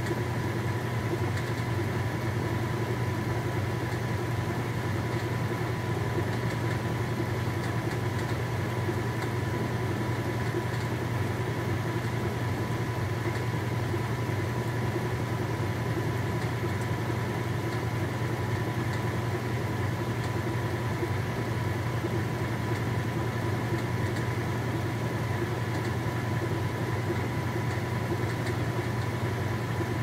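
KitchenAid top-loading washing machine in its spin cycle, the tub turning at speed with a steady motor whir. Under it runs a steady hum from the frequency converter that powers the machine.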